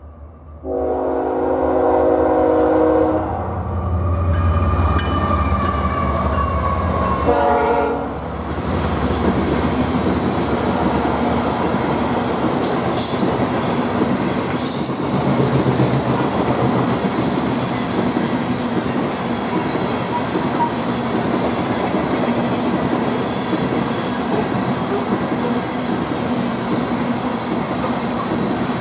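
Nathan K5HL five-chime air horn on a BNSF freight locomotive: one long blast, then a short one about seven seconds in. After that comes the steady rumble and clickety-clack of loaded coal gondolas rolling past.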